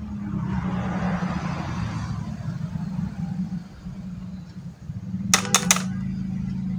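An engine running steadily, with a brief swell of noise early on, and three quick sharp clicks about five and a half seconds in.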